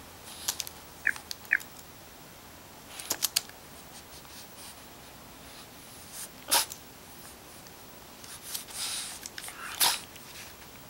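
French bulldog puppy at a laptop: two short high squeaks about a second in, sharp clicks and taps as its paws and nose hit the keyboard and casing, and a run of noisy sniffing breaths near the end.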